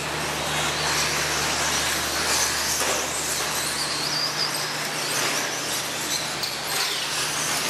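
Electric radio-controlled short-course trucks running on a dirt track: high-pitched motor whine that rises and falls as they speed up and slow down, over a steady rush of tyre and track noise and a low hum.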